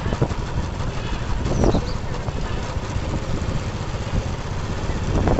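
Steady low rumble of an idling engine, with a short, sharper sound just under two seconds in.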